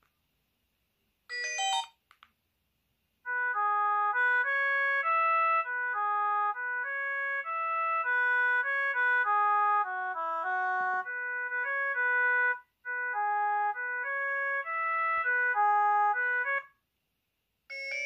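BLT V998 dual-screen mobile phone playing a polyphonic ringtone: a melody of short notes with several sounding at once, starting about three seconds in and stopping shortly before the end. A brief tone comes from the phone about a second and a half in.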